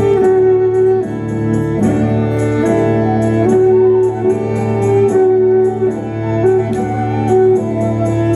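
Instrumental folk music: a melody in held notes that changes every half second or so, over a steady low bass tone.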